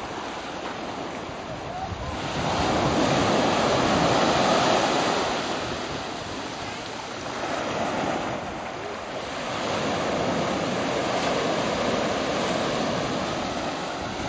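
Ocean surf: small waves breaking and washing up the sand, the rush swelling loud about two seconds in and twice more later on.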